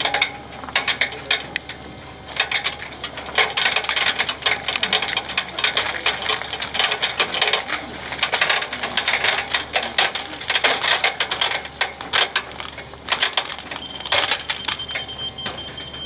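Wet pumped concrete being poured and worked with rakes and screed boards: a dense, continuous gravelly crackle and scrape of stones in the mix, with a steady low hum underneath. A faint high steady tone joins in near the end.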